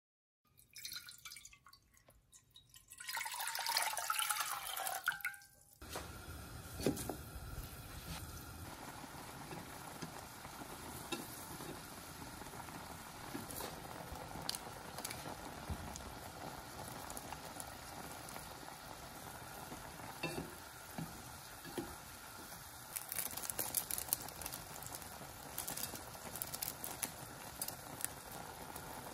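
Instant ramen noodles boiling in a pot: a steady bubbling hiss with scattered small ticks from about six seconds in. Before that comes a louder sound with a falling pitch that stops abruptly.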